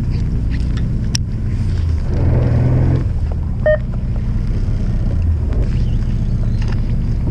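Fishing boat's engine running steadily with a low-pitched hum, with a short ping about halfway through.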